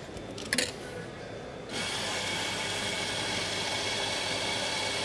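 A couple of light clicks and knocks, then, just under two seconds in, an espresso grinder's motor starts and runs steadily, grinding beans for an espresso shot.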